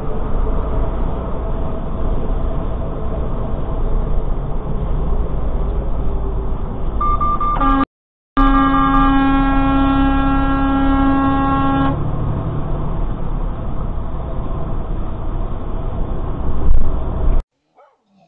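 Steady road and engine rumble inside a semi-truck cab. A horn sounds as one steady tone for about four seconds around the middle, with a short break just after it starts. There is a brief loud bump near the end.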